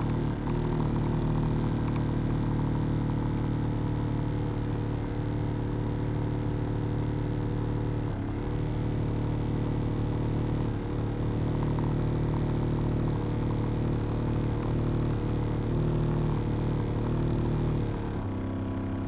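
Boat engine running at a steady low speed, a constant hum. Near the end its note shifts and drops slightly, as if throttled back.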